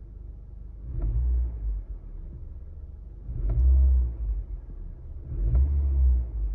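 Honda Civic FL1's 1.5-litre turbo four-cylinder exhaust idling with a low rumble. The throttle is blipped three times, about a second, three and a half and five and a half seconds in, each rev swelling briefly before dropping back to idle.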